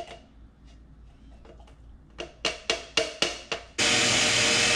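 A quick run of about seven sharp plastic knocks, then about four seconds in an electric mini chopper starts up and runs with a steady whir, chopping cooked sweet potato into a purée.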